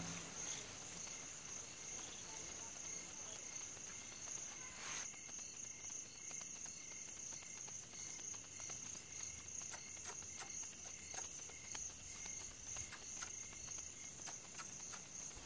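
Crickets chirring steadily, with a few faint clicks in the second half.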